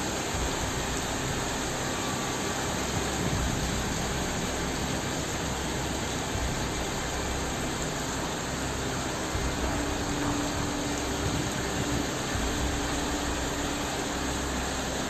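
Steady rushing noise of fast-flowing floodwater.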